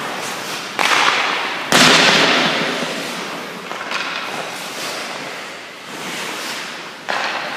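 Goalie's skate blades scraping and carving the ice in sudden pushes and stops: four sharp scrapes, each trailing off, the loudest about two seconds in.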